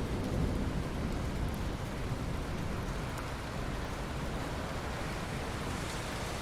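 Steady rain falling, with the tail of a low thunder rumble dying away in the first half-second.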